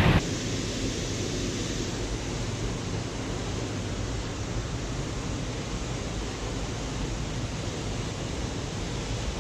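Steady rushing of a small waterfall close by, an even hiss with no breaks.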